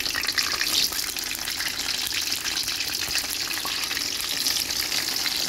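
A slab of fresh tempe frying in hot oil in a wok, a steady dense sizzle full of fine crackles, slightly stronger in the first second just after it goes into the oil.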